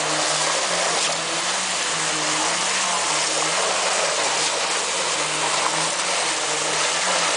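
Steady din of concrete-placing machinery, a truck-mounted boom pump and a poker vibrator, running during a pour. A low hum steps up and down in pitch about once a second over a broad rushing noise.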